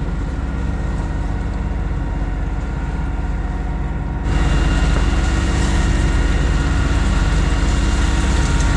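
Sailboat's auxiliary engine running steadily under way, with a fast, even low pulse. It becomes louder and brighter about four seconds in.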